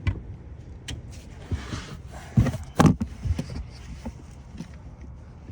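A few scattered knocks and thumps, the loudest a little under three seconds in, as a subwoofer enclosure is shifted around in a car's hatch.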